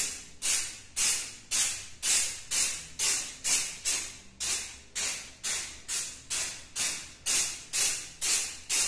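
Aerosol carburetor cleaner sprayed in short spurts onto a refrigerator's metal back panel, about two hissing spurts a second, each starting sharply and tailing off.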